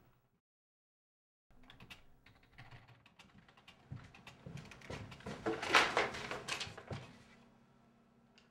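Silence for about a second and a half, then typing on a computer keyboard: rapid key clicks that get faster and louder toward the middle, then thin out near the end.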